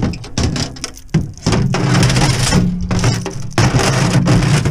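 Footsteps crunching and snapping through dry grass, brush and twigs, over a steady low hum.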